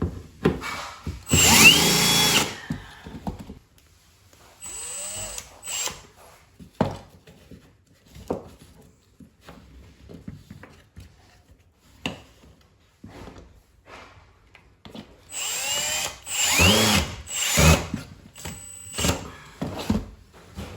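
Power drill run in several short bursts, its motor whining up to speed and winding down each time, with clicks and knocks between the bursts as it is handled.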